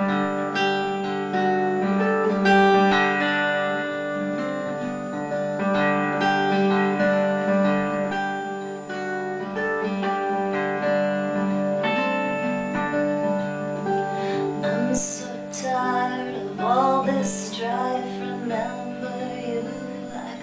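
Live acoustic guitar playing the instrumental intro to a song, with steady ringing chords. From about 15 s in, gliding notes join in.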